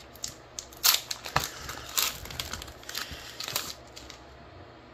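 Foil wrapper of a Pokémon card booster pack being torn open and crinkled, with a few short, sharp rustles in the first three seconds, quieter near the end as the cards are drawn out.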